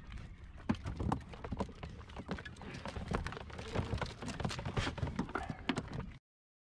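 Freshly caught mackerel flapping, their tails drumming against a plastic bucket and the floor of an inflatable boat as they are unhooked: a fast, irregular patter of sharp knocks. It cuts off abruptly near the end.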